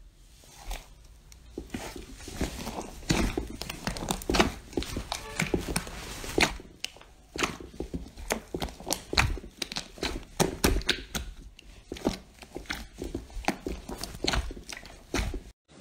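Pink fluffy slime pressed and kneaded by hand, with irregular sticky crackles and pops as trapped air bursts and the slime pulls apart.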